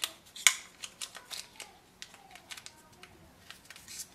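Light plastic clicks and taps as a printer's printhead and its orange plastic protective holder are handled, with the sharpest click about half a second in and smaller ones scattered after it.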